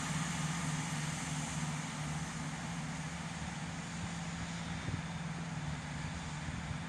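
Class 165 Turbo diesel multiple unit's underfloor diesel engines running at the platform: a steady low hum over a wash of engine and station noise, easing slightly in level.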